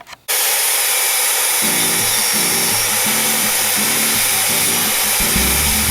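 Angle grinder running steadily against steel, starting abruptly just after the start. Upbeat background music with a repeating bass pattern comes in over it about a second and a half in.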